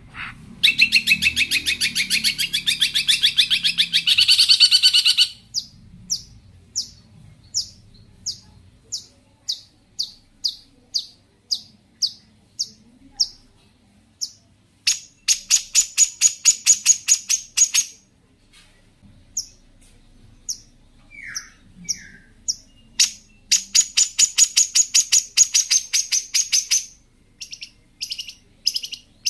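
Long-tailed shrike (cendet) singing a mimicry-filled song: three long runs of rapid high chattering, with strings of short sharp notes about two a second between them. A pair of brief falling whistles comes about two-thirds through.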